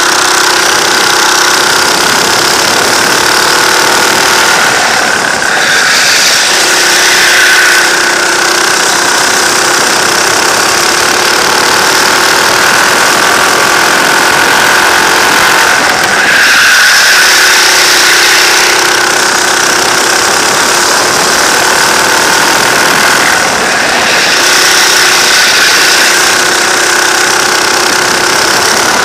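Go-kart engine heard from on board at race pace, running loud and hard, its revs dipping and climbing again a few times through the lap.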